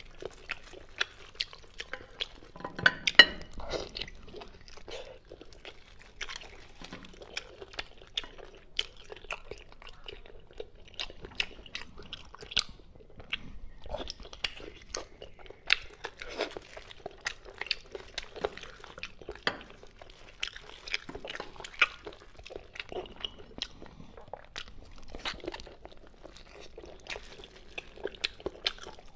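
Close-miked mouth sounds of eating a braised pork hock: wet chewing, smacking and crunchy bites in a steady stream of short irregular clicks, with the loudest bite about three seconds in.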